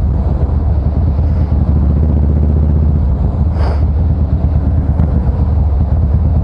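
Harley-Davidson Fat Boy Special's V-twin engine running loud through a SuperTrapp variable exhaust at a steady cruise, heard from the rider's position on the bike.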